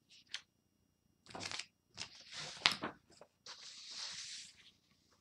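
A sheet of tracing paper being handled and laid down on the drawing paper, crackling and rustling in several short bursts, with a longer stretch about three and a half seconds in.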